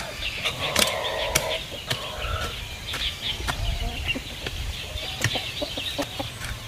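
Hoe blade striking the soil again and again in sharp chops, with chickens clucking and small birds chirping in the background.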